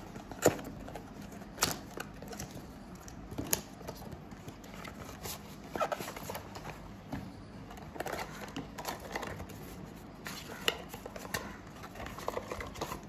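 Small cardboard product box being opened and handled by hand: irregular clicks, taps and faint crinkling of card flaps and paper packaging.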